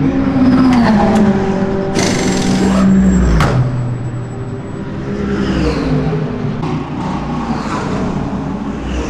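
Race car engines running past in the pit lane, their note dropping as each goes by. About two seconds in comes a hissing burst that ends in a sharp bang.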